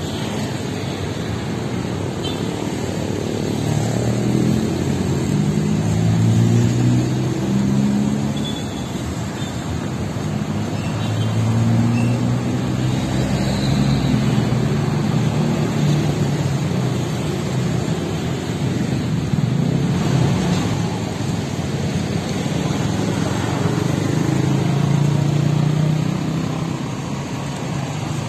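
Street traffic: motorcycle and car engines passing close by. Three times the engine note swells and climbs in pitch as vehicles pull away, over a steady traffic rumble.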